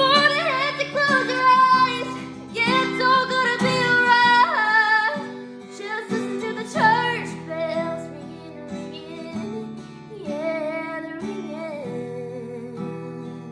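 A woman singing over strummed acoustic guitar. The voice stops shortly before the end, leaving the guitar alone.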